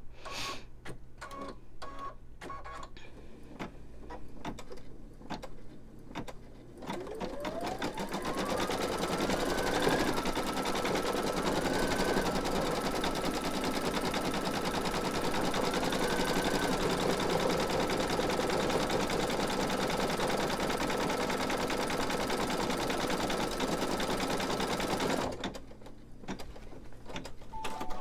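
Computerised embroidery machine stitching free-standing lace: separate slow stitches at first, then a whine rising in pitch over about three seconds as it speeds up, then running steadily at full speed until it stops suddenly near the end, as it finishes stitching one thread colour.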